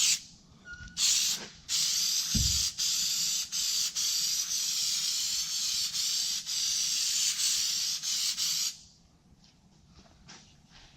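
Spray adhesive hissing from a spray nozzle onto carpet: one short burst, then a long steady spray of about seven seconds that cuts off abruptly.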